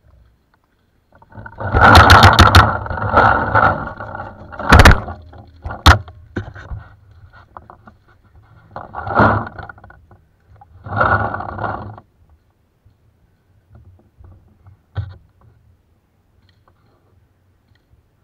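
Scraping and rubbing against a body-worn camera, with sharp knocks, while the wearer moves between cover. The heaviest stretch is about one to four seconds in, with two sharp knocks just after it and two shorter bursts of scraping later on.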